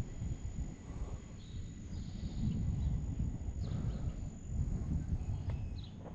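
Wind buffeting the microphone as a steady low rumble, with a few faint high chirps and a thin steady high tone over it.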